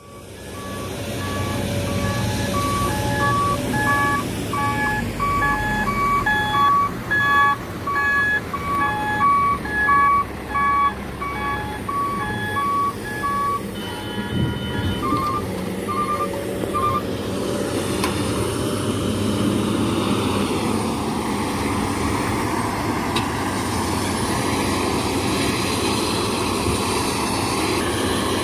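Heavy diesel vehicle's reversing alarm beeping at an even pace, about one and a half beeps a second, over the running diesel engine. The beeping stops about halfway through, with a few quicker beeps shortly after, and the engine keeps running.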